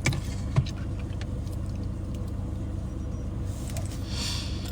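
Steady low rumble of a motor vehicle, with a few faint clicks and a short hiss near the end.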